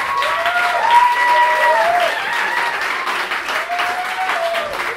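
A small club audience giving a standing ovation: dense, sustained clapping with whoops and cheers rising and falling in pitch over it.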